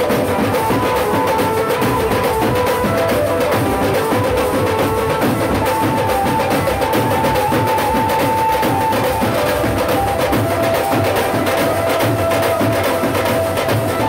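A street drum band playing: many stick-beaten drums, from large cylindrical drums to wide shallow ones, struck together in a fast, dense, continuous rhythm, with a steady held melody line sounding over the drumming.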